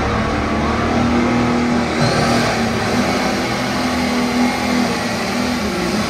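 Pulling tractor's engine running hard and loud as the tractor drags the weight-transfer sled down the track, a steady engine note throughout.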